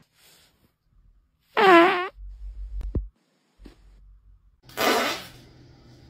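A loud fart about a second and a half in, with a wavering pitched tone that trails into a low fluttering rumble and ends abruptly near three seconds. A shorter, noisier burst of sound follows near five seconds.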